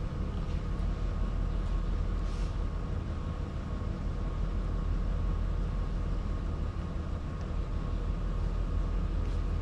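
Steady low hum with a thin, faint high tone held above it, unchanging: the background drone of lab equipment.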